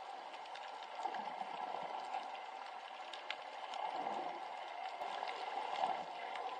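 Water bubbling and sloshing, a steady churning that swells and fades, with a few light ticks.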